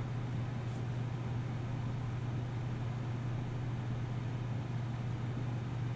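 Steady low hum over a faint, even hiss. This is the background tone of the recording, with no distinct events.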